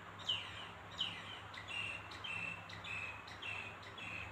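A bird calling repeatedly: a run of short chirps, roughly one every half second, the first few sweeping downward and the later ones short and level in pitch, over a faint steady low hum.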